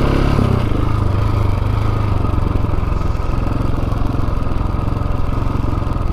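Dirt bike engine running steadily under way, a constant low drone with no change in pace.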